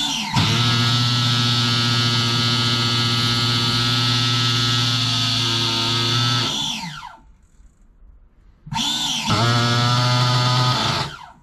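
Electric starter spinning a new nitro RC engine in bursts while trying to start it. A steady motor whine lasts about six and a half seconds and winds down. After a short pause a second burst of about two seconds winds down the same way, and a third burst starts at the very end.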